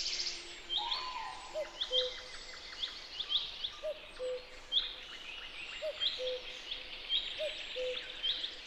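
Birds singing outdoors: a low two-note call repeats every one and a half to two seconds, with higher, sharp chirps from other birds, over a steady outdoor hiss.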